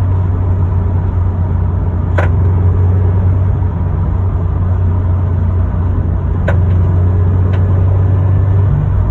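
FR-S/BRZ's 2.0-litre flat-four engine running steadily under load, with three sharp clicks, one about two seconds in and two more about a second apart later. The clicks are the intermittent creak/pop the owner is chasing, which he thought was a loose exhaust hanger or torque rod.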